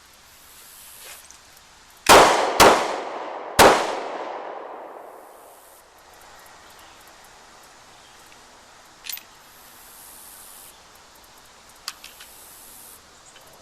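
A handgun fired three times in the failure-drill pattern: two quick shots to the body half a second apart, then a pause of about a second and a single shot to the head, each shot ringing off as it fades. A short click follows several seconds later.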